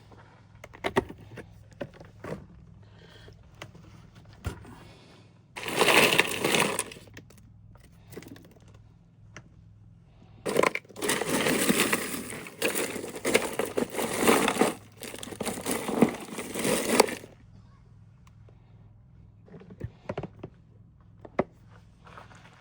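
Camp cooking gear and food packaging being handled: scattered clicks and knocks, with two longer stretches of loud rustling, the longer one from about ten seconds to seventeen seconds in.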